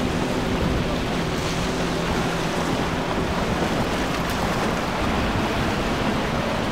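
Outboard motors of a center-console boat running at speed; their drone fades out within the first couple of seconds, leaving a steady rush of surf and wind on the microphone.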